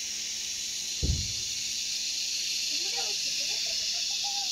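Steady high-pitched drone of an insect chorus, with a single dull thump about a second in.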